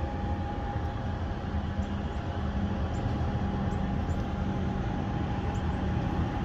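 A steady low mechanical drone with a constant hum, like a large engine running nearby.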